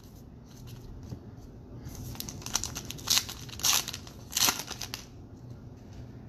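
A trading-card pack wrapper being torn open and crinkled: rustling starts about two seconds in, with three sharper crackles in the middle.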